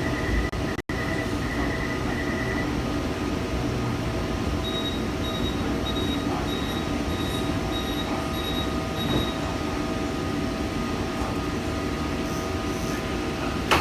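Taichung MRT Green Line train: the door-closing warning beeps at the start. A steady run of higher pulsed beeps follows about five seconds in while the train pulls away, over a continuous running hum and rumble.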